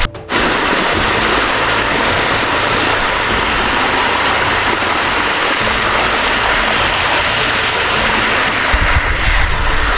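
Steady, loud rush of water running down the cascades of a limestone waterfall, close to the microphone.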